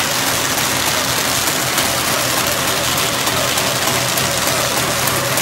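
Paper bag making machine running steadily: an even mechanical whirr of rollers and drive with a low hum underneath as the paper web feeds through.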